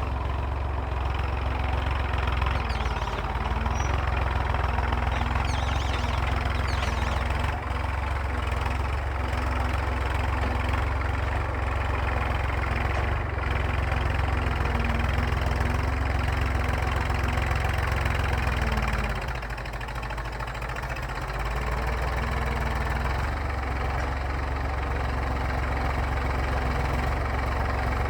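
Massey Ferguson tractor's diesel engine running steadily while pulling a plough, with a deep low hum; it eases off briefly about two-thirds of the way through, then comes back up.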